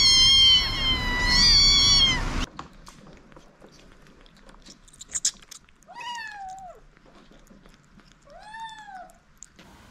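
Several young kittens meowing loudly and insistently over one another, high-pitched calls that stop abruptly about two and a half seconds in. After that a single kitten meows twice, more softly: one meow falls in pitch and the next rises and falls, with a few faint clicks between them.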